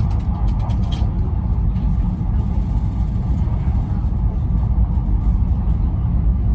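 Steady low rumble of a high-speed train running at speed, with a few faint clicks in the first second.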